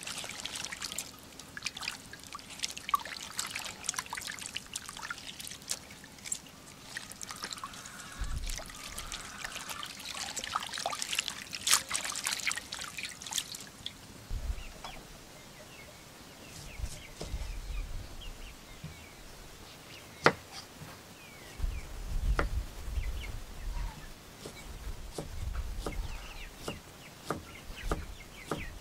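Hands swishing and lifting a bunch of leafy greens in a stainless steel basin of water: splashing, trickling and dripping for about the first half. After that it goes quieter, with scattered sharp clicks and knocks.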